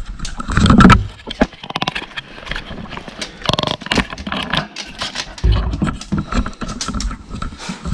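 A dog working at a treat-filled bone toy to get the treats out: irregular scraping, clicking and knocking, with a quick run of clicks about one and a half seconds in.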